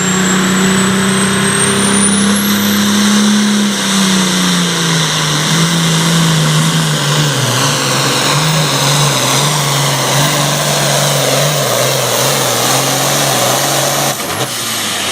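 Super Farm class pulling tractor's turbocharged diesel engine at full power during a pull, with a high turbo whine climbing over the first three seconds. About four seconds in the engine note drops a little and then wavers as it works under the load.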